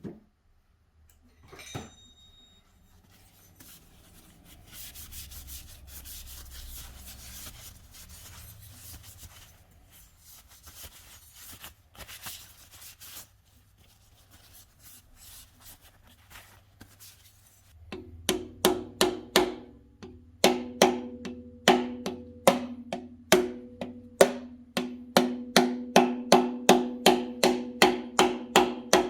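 A stretch of soft rubbing, then from about two-thirds of the way in a fast, steady series of hammer taps, two to three a second, each with a short metallic ring, as a Supertech block guard is driven down into the water jacket of a Honda B16A aluminium cylinder block.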